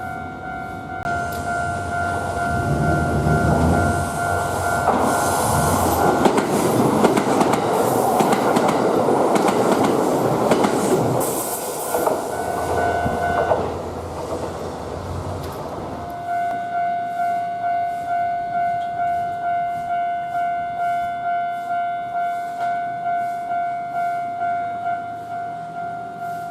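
Japanese level-crossing warning bell ringing with a steady two-tone clang while a Kintetsu electric train runs over the crossing, its wheels clattering over the rail joints. The train passes in about a dozen seconds, and the bell then rings on alone at a regular beat of about one and a half strokes a second.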